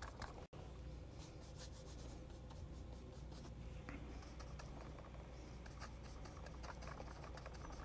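Faint, scratchy brushing of a paintbrush working paint, many small irregular strokes over a faint steady hum.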